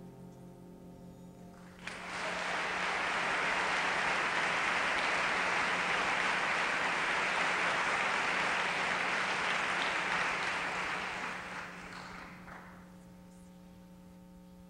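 The last piano notes die away. About two seconds in, a theatre audience breaks into applause, which lasts about ten seconds and fades out near the end.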